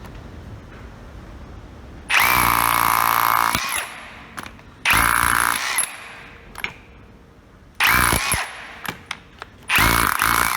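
Milwaukee M18CHPX cordless SDS hammer drill drilling into brick in four bursts, the first and longest about a second and a half. The motor's whine rises as it spins up at the start of each burst. The drill is working under load after its repair.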